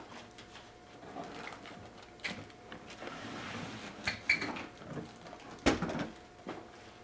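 Handling noise of a small yellow plastic toy basket being turned over: scattered light plastic clicks and knocks with a soft rustle, and one sharper, louder knock about two-thirds of the way through.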